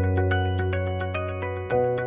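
Background music: a steady electronic track with quick repeating mallet-like notes over a held bass note that changes pitch near the end.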